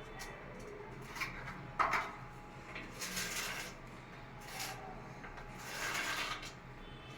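Irregular knocks, clicks and scraping rubs of hard objects being handled, with one sharp knock about two seconds in and longer scrapes in the middle and near the end.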